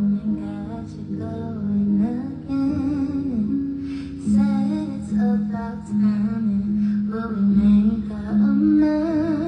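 A woman singing a slow R&B-style melody in long held notes with no clear words, over a plucked acoustic guitar.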